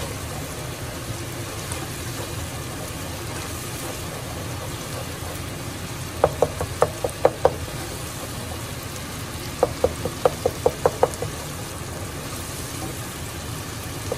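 Dal and onion-tomato masala frying in a pot on a gas burner while a wooden spoon stirs it, with two quick runs of knocks as the spoon hits the pot: about six near the middle and about eight more a few seconds later.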